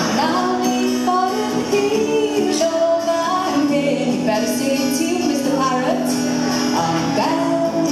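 A woman singing live to her own acoustic guitar accompaniment, holding long sung notes over the guitar.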